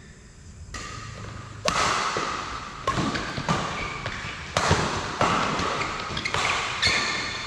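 Badminton rackets striking the shuttlecock in a doubles rally: a run of about seven sharp hits, roughly one a second, beginning about two seconds in.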